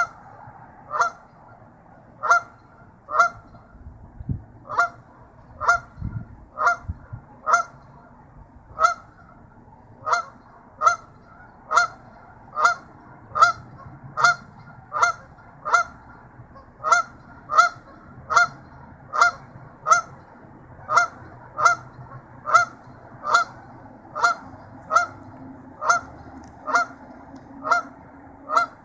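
Canada goose honking over and over, single short honks about once a second.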